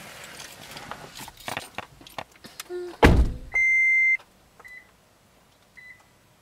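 Handling and rustling noise, then a loud door thunk about three seconds in, followed by a Toyota Prius warning beep: one steady high tone under a second long, then two short beeps about a second apart. It is the car's alert that it is still switched on in Ready mode as the driver leaves it.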